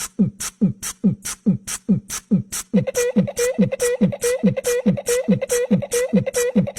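Background music with a fast, steady beat: deep booming kicks alternating with crisp hiss-like hits about three times a second, joined about three seconds in by a held, wavering melody note.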